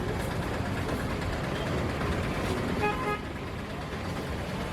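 Steady street traffic noise, with a vehicle horn giving a short double toot about three seconds in.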